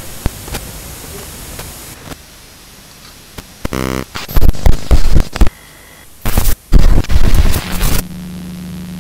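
VHS tape-glitch sound effect: a steady hiss of static broken by short electrical buzzes and several loud bursts of noise, ending in a low steady hum.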